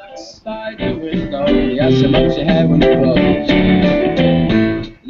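Guitar music playing through a homemade battery-powered speaker box driven by an LM386 amplifier chip into an 8-ohm speaker, picked up by a video-call microphone. The music grows louder about a second in. The builder finds it a little hollow because the box is not filled with foam.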